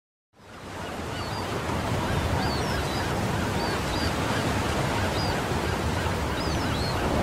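A steady rush of wind and sea water fades in during the first second, with scattered short, high bird calls above it.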